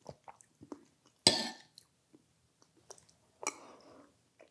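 Eating soup: a metal spoon clicks and clinks against a ceramic bowl several times, with two short, louder slurps, one just over a second in and one about three and a half seconds in.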